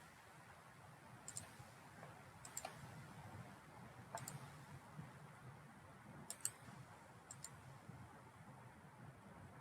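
Faint computer mouse clicks over quiet room tone: a few single clicks, then two quick pairs past the middle.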